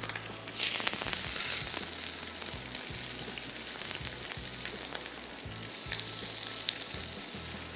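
Potato wedges sizzling in oil on a hot cast-iron sizzler plate. A sharp surge of sizzle comes about half a second in as wedges are laid on, then settles into a steady hiss with scattered crackles.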